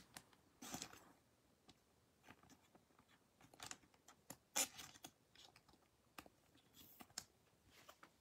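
Faint, scattered rustles and clicks of trading cards being handled and slid into a soft clear plastic sleeve, the loudest about halfway through.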